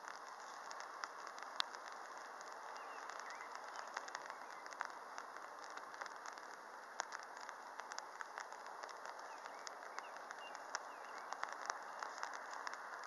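Steady outdoor hiss dotted with many faint, irregular ticks and clicks.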